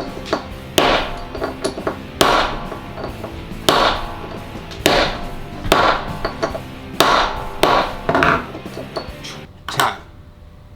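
Sharp, irregular strikes, roughly one a second, as caps are slammed into an interchangeable lock core on a manual LAB Annex capping fixture, over background music. The striking stops near the end.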